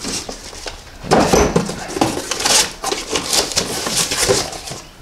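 Cardboard boxes being slid and handled, with flaps scraping and rustling and small knocks as parts are moved about inside; the handling starts about a second in.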